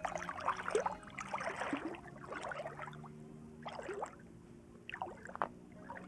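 Lake water splashing in about five short irregular bursts, roughly a second apart.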